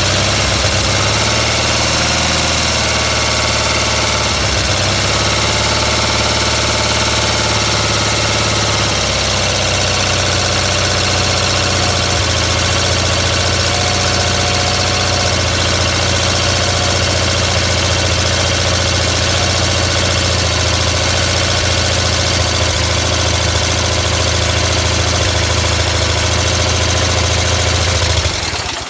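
Rebuilt Onan CCKA two-cylinder opposed engine on a Gravely 450 tractor running loud; its speed wavers up and down for the first several seconds, then holds steady, and the engine cuts off suddenly near the end. It runs with a throttle linkage out of adjustment that lets the governor pull it toward overspeed.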